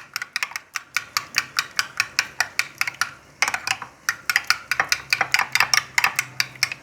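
A spoon stirring fast, clicking against the side of a bowl or pot about five or six times a second, with a short pause near the middle.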